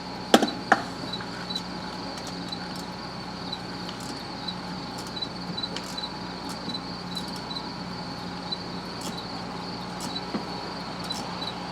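Two sharp metal clicks about half a second in, then scattered light tool clicks as a spark plug is worked loose by hand, over a steady low hum and a high, evenly pulsing chirp like a cricket.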